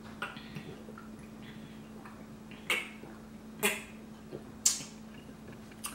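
A person gulping water from a large plastic bottle: three loud swallows about a second apart, over a faint steady low hum.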